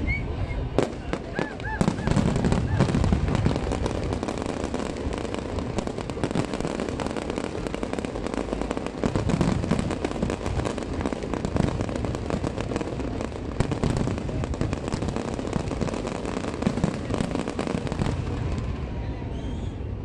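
Fireworks display: shells bursting overhead in a steady run of crackles and pops over repeated deep booms.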